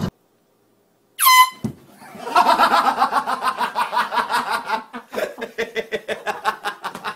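A short air-horn blast about a second in, followed by a long run of laughter.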